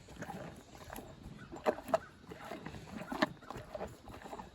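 A farm animal chewing an apple with its mouth open: irregular crunches and smacks, a few sharper ones in the middle.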